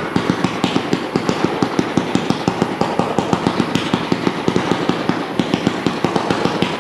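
Fireworks cake (battery) firing a fan of red comet shots: a rapid, even run of launch thumps, several a second, over a continuous crackling hiss.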